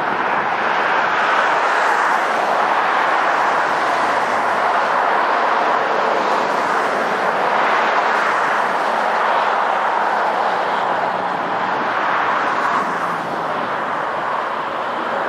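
Airbus A321 jet engines running at taxi power: a steady, even engine noise.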